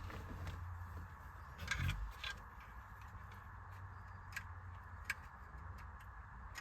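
A few sharp small clicks and a soft knock with rustling as plastic trim and switch wiring connectors behind a steering-wheel cover are handled, over a low steady hum.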